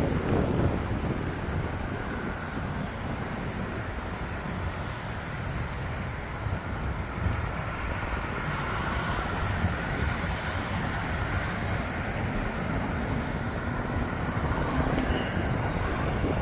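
Steady low rumble of road traffic mixed with wind noise, with no distinct events.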